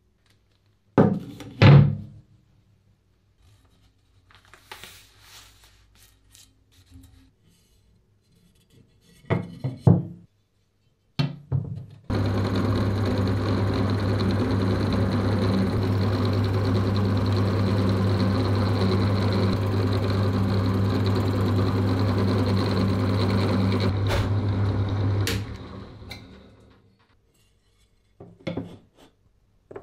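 A few knocks, then a workshop machine's electric motor switched on, running steadily with a low hum for about 13 seconds, then switched off and spinning down.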